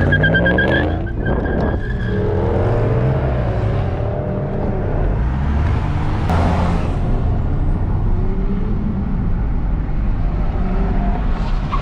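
Pickup truck engines and road noise heard from inside a moving vehicle, a deep rumble throughout, with an engine's pitch climbing in the first couple of seconds while a steady high whine sounds, and a short louder surge about six seconds in.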